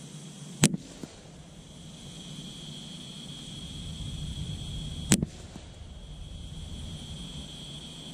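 Two .22 LR rifle shots firing SK Biathlon rounds, about four and a half seconds apart. Each is a sharp crack followed by a fainter second report.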